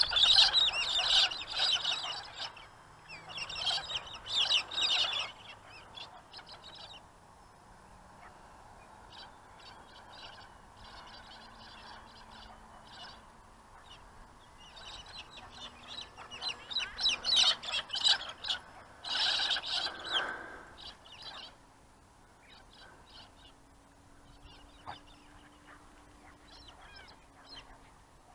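A large flock of birds calling overhead: dense bouts of harsh, overlapping calls in the first few seconds and again in the middle, thinning to scattered calls near the end.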